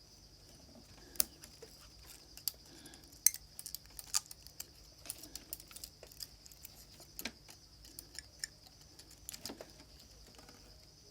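Irregular light clicks and taps of small tools and fingers handling the parts of a smartphone being taken apart, over a faint steady high-pitched hiss.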